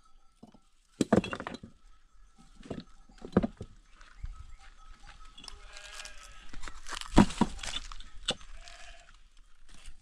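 Sheep bleating several times, loudest about a second in and again about seven seconds in, with short knocks in between.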